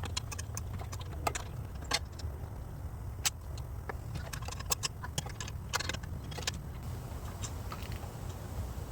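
Scattered metallic clicks and clinks of a 1/2-inch wrench working a nut and bolt on a mower deck cover, over a steady low rumble.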